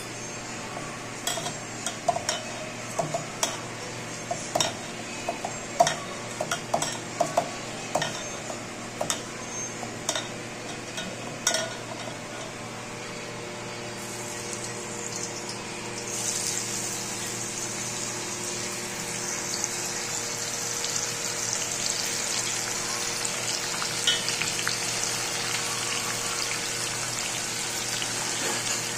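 Sharp clinks and knocks from handling the spiny gourd slices in a steel bowl, then, about sixteen seconds in, a steady sizzle starts as the slices fry in hot oil in a kadai and keeps going.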